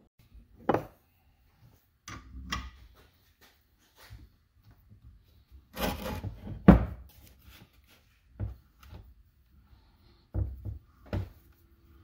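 Metal knocks and clunks from an open-end wrench working a reusable AN power steering hose fitting clamped in a bench vise that is not bolted to the bench: a handful of separate knocks, the loudest about six and a half seconds in.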